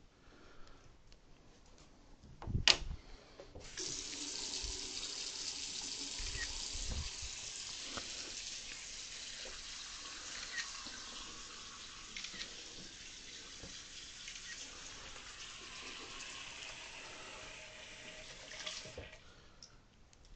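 Sink faucet running steadily for about fifteen seconds, then shut off abruptly; a sharp knock comes just before the water starts.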